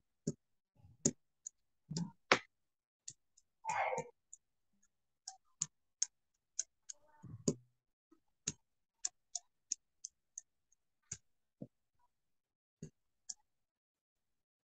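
Computer keyboard typing: irregular, sharp key clicks, with a short soft hiss about four seconds in.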